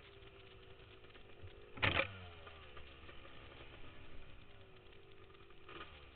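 ATV engine under throttle on a dirt trail, its pitch rising and falling as the rider works the throttle. A short loud burst of noise about two seconds in.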